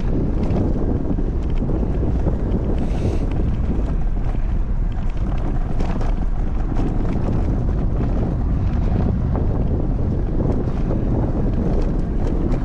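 Steady wind buffeting the microphone, a loud low rumble that holds throughout.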